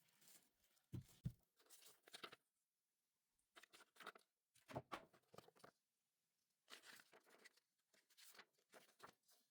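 Keyboard packaging being unwrapped and handled: faint, on-and-off rustling and crinkling with light knocks and clicks, broken by a few short silent gaps.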